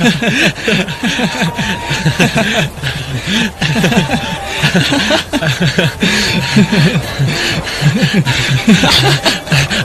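Men laughing heartily, a long run of quick, repeated ha-ha bursts with more than one voice overlapping, over a steady hiss.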